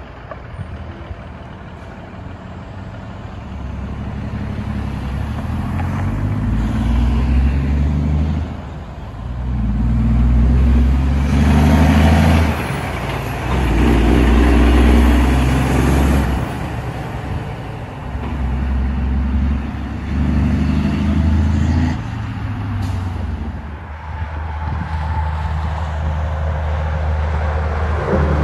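Straight-piped diesel engine of a Peterbilt dump truck accelerating away through several gears. The exhaust note climbs and drops back at each shift, and it is loudest as the truck passes by.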